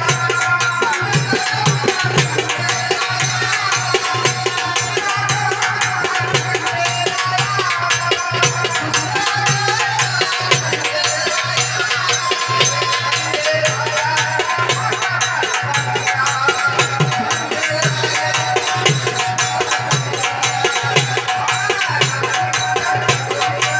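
Live Marathi folk song (a gan invocation): a singer's voice over fast, steady hand-drum strokes and rattling percussion.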